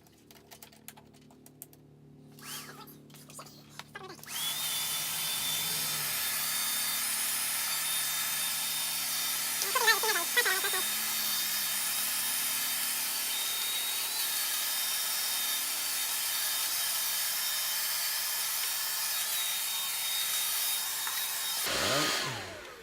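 12-volt handheld car vacuum, plugged into a cigarette lighter socket, switching on about four seconds in and running steadily with a thin high whine, then switched off near the end, its motor winding down.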